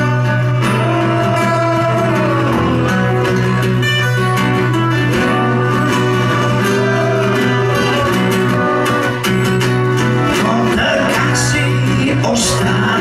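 Live acoustic guitar music with a singing voice, guitars strummed and picked steadily at a loud, even level.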